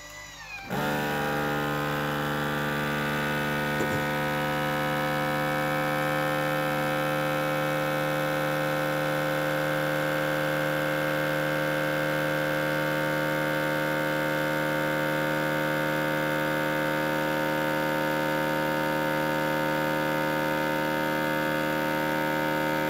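Countertop vacuum sealer's pump starting up about a second in, then running with a steady hum as it draws the air out of a large Mason jar through a hose and jar-sealer attachment.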